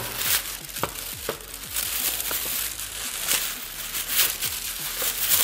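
Clear plastic bag crinkling and rustling in irregular crackles as a welding helmet is pulled out of it.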